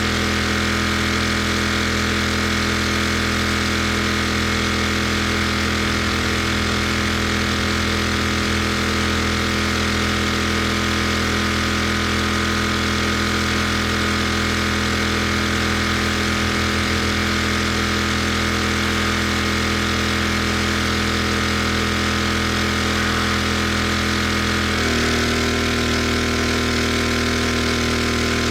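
Gas-engine pressure washer running steadily at a constant pitch, with a hiss of spray over the engine note. Near the end the engine note shifts to a different pitch for a few seconds, then settles back.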